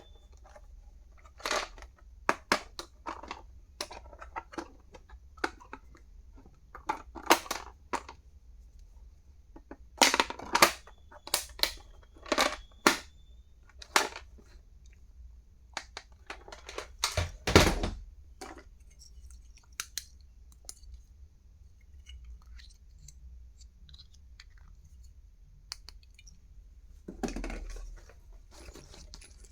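Stationery and its plastic packaging being handled and unpacked: scattered sharp clicks, taps and short crinkles with quiet gaps between them, and a longer rustle near the end.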